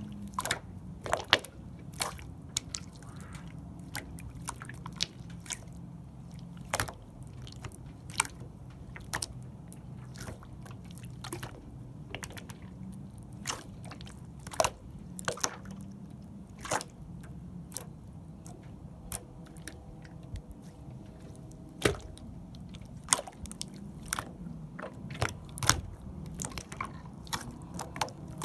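Cloud slime being squished and pulled by hand, giving soft squishing with sharp sticky pops and crackles at irregular moments.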